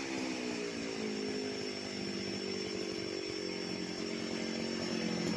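Chainsaw's small two-stroke engine winding down from high revs after the throttle is released, then idling steadily, the idle picking up slightly near the end.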